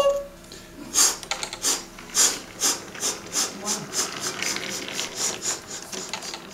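Model train running along its track: a rapid, slightly uneven series of mechanical clicks, about four or five a second, over a light rattle of the locomotive's gears and wheels.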